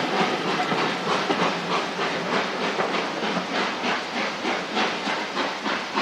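GWR Manor class 4-6-0 steam locomotive working hard as it pulls away, its exhaust beating about three to four times a second over a steady steam hiss, gradually fading as it draws away.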